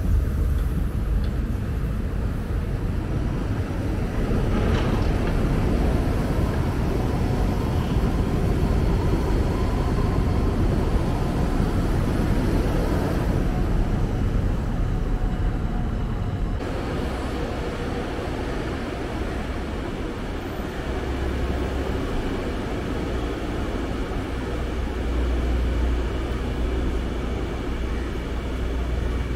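KTM 61 Class diesel multiple unit running past, a continuous rumble of diesel engines and wheels on the track. About two-thirds through, the sound changes to a steadier low diesel drone with a faint high whine from a DMU standing at a station platform.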